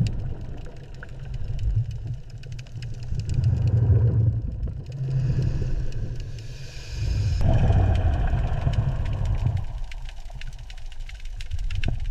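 Low, engine-like rumbling drone with scattered faint crackles. It swells twice, about a third of the way in and again past the middle, then eases off.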